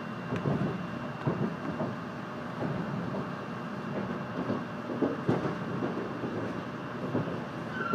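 Inside the cabin of a 700 Series Shinkansen train in motion: a steady rumble of running noise with irregular knocks and thumps from the wheels on the track.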